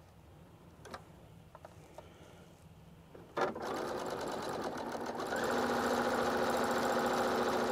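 Brother household sewing machine stitching fabric. A few faint clicks come first; the machine starts running about three seconds in and picks up speed about two seconds later, then runs steadily.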